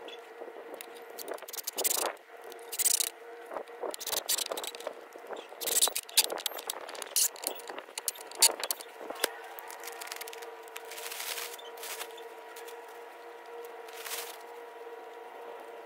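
Scraping, rattling and clicking as a wooden post and its metal base sleeve are handled and fitted in a hole in the ground, with loose soil. A steady hum runs underneath and grows louder in the second half.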